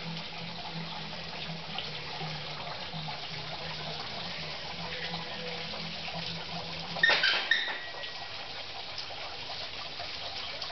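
Steady sound of running water trickling into a greenhouse pond, under a low hum that stops a little past halfway. About seven seconds in comes a short, loud, high-pitched sound.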